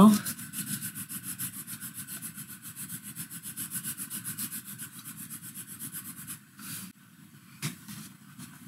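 A colored pencil shading on paper in quick back-and-forth strokes, a steady scratchy rubbing of about five strokes a second. It stops about six seconds in, leaving only a few separate light scratches.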